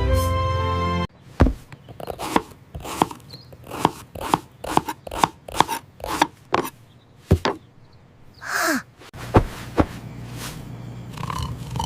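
Kitchen sound effects of food preparation: a run of irregular knocks and taps, roughly two or three a second, after a brief snatch of music. A short falling squeak comes near the end of the taps, then a low steady hum.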